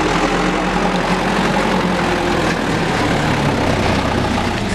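Diesel engine of a heavily loaded Mitsubishi Canter truck running steadily at low speed as the truck crawls past close by through deep mud.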